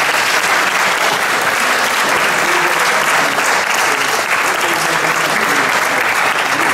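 Audience applauding, steady dense clapping.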